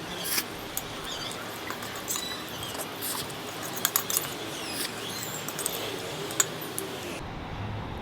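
Close-up eating sounds of spicy ramen noodles: wet mouth smacks, slurps and small clicks, a few of them sharper, over a steady hiss.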